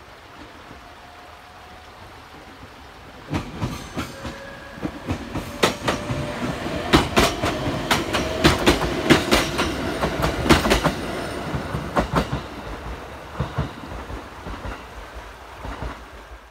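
An ET127-series electric train passing close by: its wheels clack over the rail joints in a run of sharp knocks that starts about three seconds in, is loudest around the middle and thins out as the train moves away.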